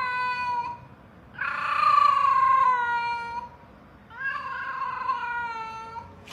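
A cat meowing in long drawn-out calls: the end of one, then two more of about two seconds each, each sliding down in pitch as it ends.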